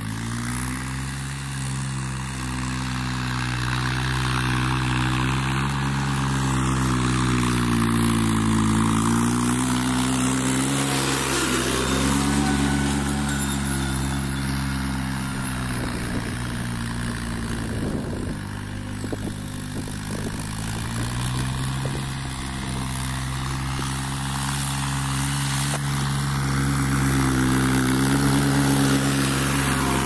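Farm tractor's diesel engine running under load as it pulls a tine cultivator through the soil, its note dipping and rising a few times.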